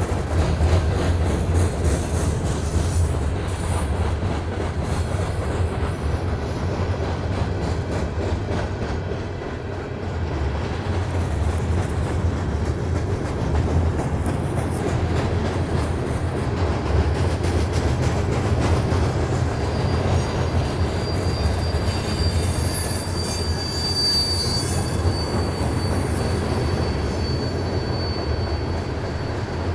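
Loaded Norfolk Southern coal hopper cars rolling over a steel girder bridge: a steady low rumble of wheels on rail. About two-thirds through, a high, thin squeal comes in from the running gear and holds for several seconds before fading.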